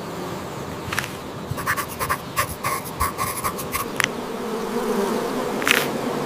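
Steady insect-like buzzing, with scattered sharp ticks that come in a quick run between about one and a half and three and a half seconds in.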